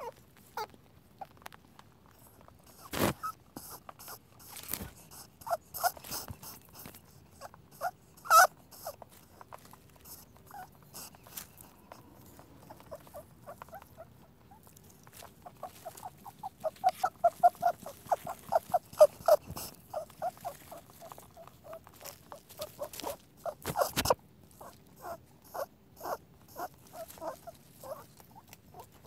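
Rabbit noises: scattered short, squeaky pulses that bunch into a quick run of several a second in the middle, with a few sharper clicks in between.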